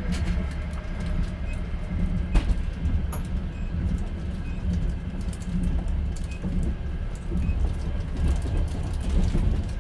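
Inside a moving passenger train's sleeper carriage: the steady low rumble of the wheels on the rails and the running carriage, with a few sharp clicks and knocks from the carriage, one about two and a half seconds in.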